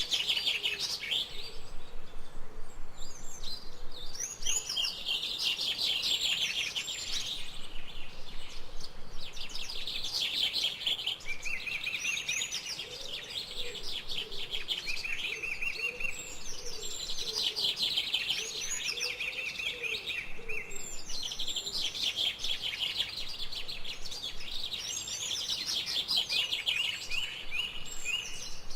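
Many birds chirping and trilling at once without pause, a dense chorus of high calls. Through the middle, a lower call repeats several times in short arched notes beneath it.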